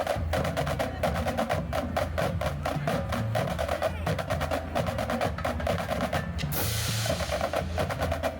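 High school marching band drumline playing a fast, steady rhythm of drum strokes, with a cymbal crash about six and a half seconds in.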